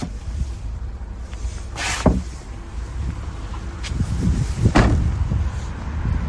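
A car's boot being handled: a sharp knock about two seconds in, then the boot lid shut with a heavy thud near the five-second mark, over a low rumble of wind and handling on the phone microphone.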